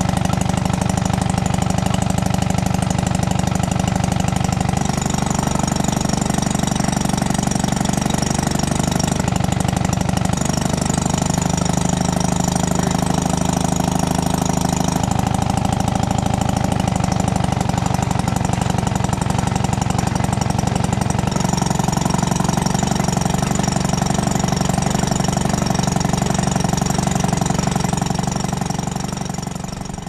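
1939 Maytag Model 72 twin-cylinder two-stroke gas engine running steadily while powering a converted electric wringer washer. Its note shifts up and down a few times, and the sound fades out near the end.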